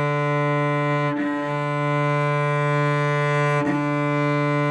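Cello bowing one long, steady low D at mezzo forte, with added arm weight into the string, with a bow change about a second in and another about three and a half seconds in.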